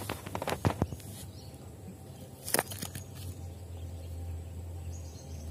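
Stones and gravel being handled: a quick run of small clicks, then one sharp knock about two and a half seconds in, over a low steady rumble.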